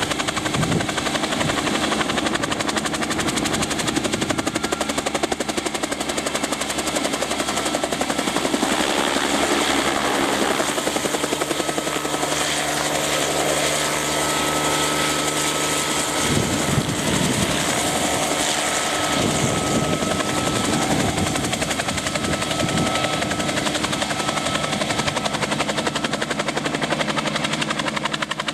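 Bell 47 helicopter in flight: steady piston-engine drone with a fast, even rotor chop.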